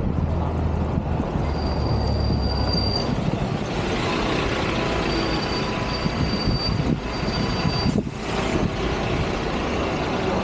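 Train running on the rails with a low rumble for the first few seconds and a thin, high-pitched wheel squeal that comes and goes through the middle, with a short knock near the end.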